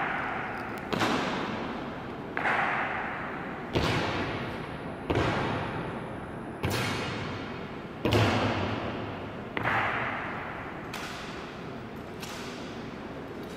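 Honor guards' boots stamping on the marble floor in a slow ceremonial march, one sharp stamp about every second and a half, nine in all. Each stamp echoes through the stone hall.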